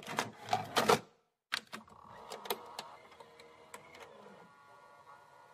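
Typewriter-style clacking sound effect: loud rapid clacks for about the first second, then after a brief gap fainter scattered clicks that fade out.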